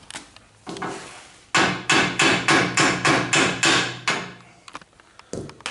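Hammer blows on a steel square-tube frame rail of a dirt late model chassis, tapping the rail section into place: about eight quick strikes at roughly three a second, with the steel ringing under them.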